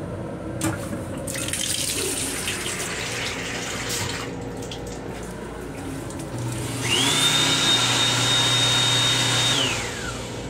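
M7 railcar sink's combined faucet and hand-dryer unit: water runs from the spout for about three seconds. Then the hand dryer's blower starts with a rush of air, its motor whine rising quickly to a high steady pitch, and winds down with a falling whine about three seconds later.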